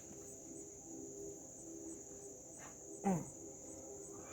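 Insects chirping steadily in a high, even drone. About three seconds in comes one short, louder sound that slides quickly down in pitch.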